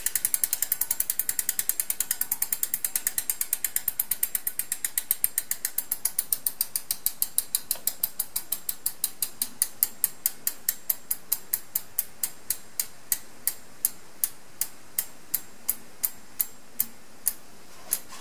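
Giant P-R2 rear hub's freehub pawls clicking as the rear wheel coasts down to a stop. The ticks slow steadily from a rapid run to single clicks more than half a second apart, and stop just before the end.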